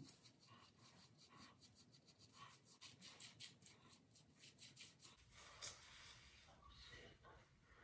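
Faint, quick scratchy strokes of a dye brush and comb working hair dye into the roots of locs, with one sharper click about five and a half seconds in.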